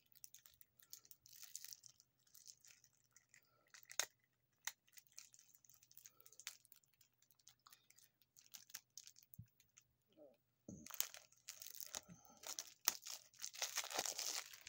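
Faint handling of game cards and their packaging: crinkling and tearing of wrapping, with scattered small clicks. One sharper click comes about four seconds in, and the rustling gets denser and louder over the last few seconds.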